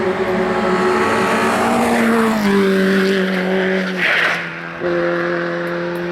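Race car engine running hard under acceleration, its pitch climbing and then stepping down at gear changes, twice. About four seconds in there is a short hiss and a brief dip in the engine note.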